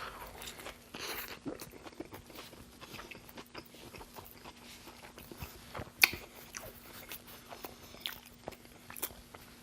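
Close-miked mouth sounds of a person chewing a Burger King burger: a run of small wet clicks and smacks, with one sharper click about six seconds in. A faint steady hum runs underneath.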